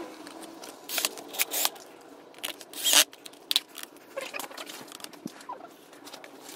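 Scattered small clicks, taps and brief scrapes of hand work on a steering wheel, as the paddle-shifter screws are driven in. The loudest is a short scrape about three seconds in.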